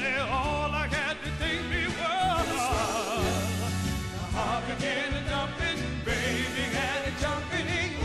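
Male soul vocal group singing with vibrato over an instrumental backing with a steady bass.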